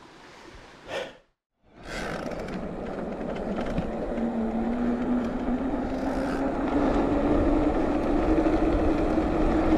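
Electric mountain bike being ridden: steady wind and tyre rumble on the microphone, starting about two seconds in, with a faint whine that climbs slowly in pitch.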